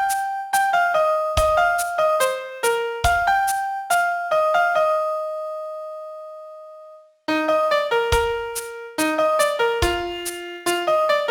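Piano playing a pop-song melody one note at a time, with occasional low notes under it. About five seconds in, a long note is held and fades away, and after a brief silence the melody starts again.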